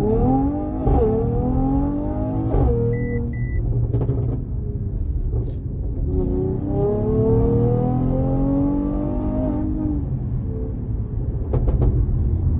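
Mercedes-AMG GT 53's turbocharged inline-six accelerating hard: its pitch climbs, drops suddenly at an upshift near three seconds, then climbs again for several seconds before easing off near ten seconds, with a few sharp cracks. Two short beeps sound about three seconds in.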